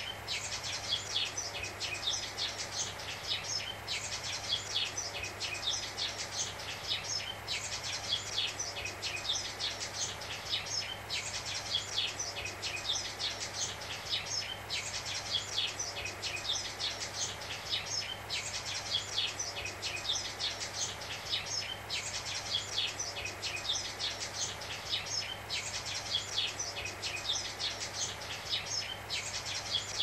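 Sparrows chirping busily in dense clusters that come back about every three and a half seconds, over a steady hiss of analog TV static and a low steady hum.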